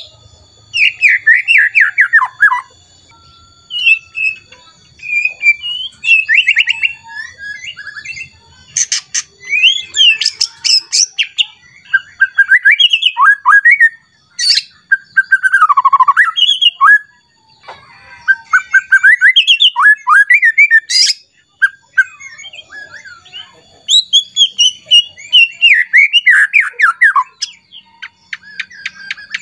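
White-rumped shama singing a loud, varied song: bursts of quick whistles, falling slurred notes and fast ticking trills, broken by short pauses. This is the agitated 'emosi' song in which a shama runs through its repertoire of phrases ('bongkar isian').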